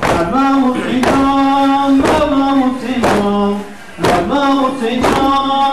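A man chanting a religious chant in long, drawn-out held notes. A regular thud or beat lands about once a second under the voice.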